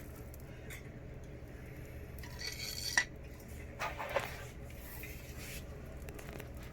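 A few light clinks and rustles of objects being handled over a low steady hum, with one sharp click about three seconds in.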